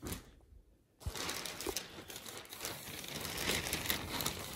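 A clear plastic clothing bag crinkling as it is handled, starting about a second in.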